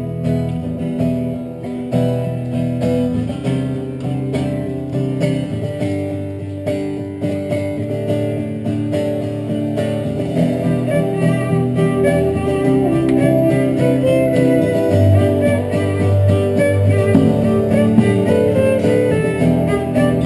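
Live worship band playing an instrumental stretch with no singing, acoustic guitar to the fore with violin and keyboard.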